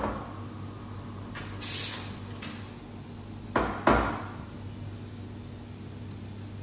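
Work at a Nuova Simonelli espresso machine: a click, a brief hiss of steam from the steam wand about one and a half seconds in, then two loud knocks just before four seconds in, over a low steady hum.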